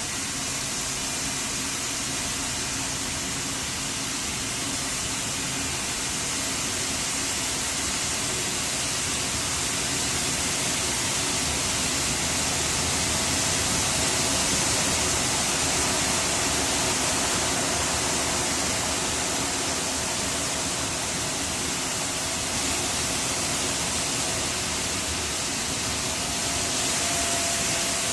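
Steam factory ambience: a steady, loud hiss of escaping steam over a low machinery rumble, swelling slightly about halfway through.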